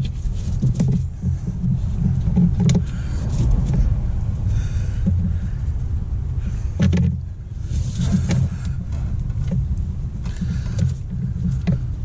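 Scattered sharp clicks and clinks of metal hose fittings and clamps being handled and tightened by hand, over a steady low background rumble.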